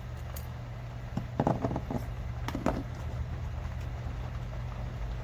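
Light clicks and rattles of a plastic flashlight and its batteries being handled, in two short clusters, over a steady low hum.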